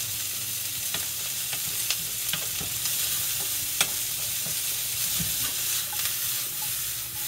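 Broccoli frying in olive oil and butter in a skillet: a steady sizzle with a few sharp clicks, as the pan is shaken and the broccoli tossed with a wooden spoon.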